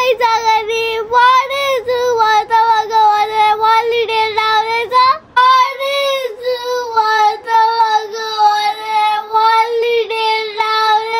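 A girl crying loudly in a long, high wail held on almost one pitch, broken by a short catch of breath about five seconds in.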